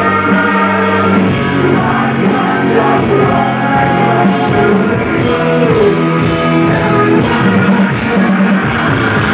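Rock band playing live, a male lead singer singing into a handheld microphone over drums and electric guitar, recorded from within the audience.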